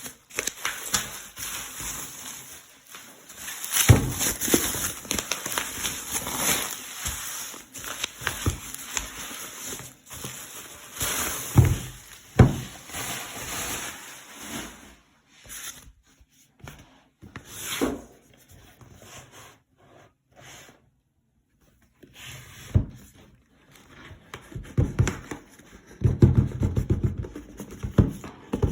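Packaging being handled by hand: irregular rustling and rubbing with scattered clicks and knocks. It goes nearly silent for a few seconds a little past the middle, then picks up again near the end.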